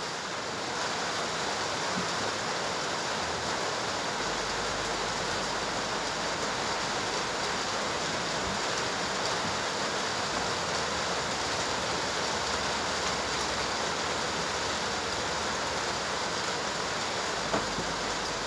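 A steady, even rushing noise with no distinct events, and a single faint knock near the end.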